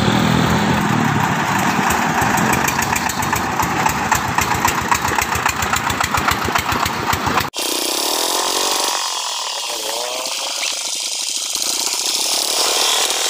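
Engines of mobile rice-mill vehicles running as they drive past, with a rapid, even beat. About halfway through, the sound cuts abruptly to another engine running with less bass.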